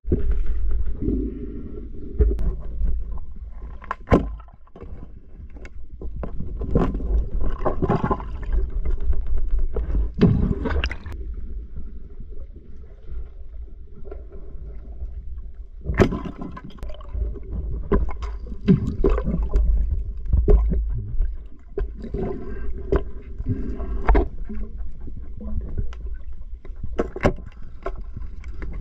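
Water heard underwater through a submerged camera: a muffled low rumble of water moving, with gurgling and scattered sharp knocks and clicks, several of them loud.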